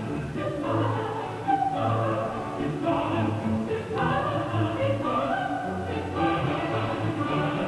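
Music with singing voices, in phrases that swell about once a second.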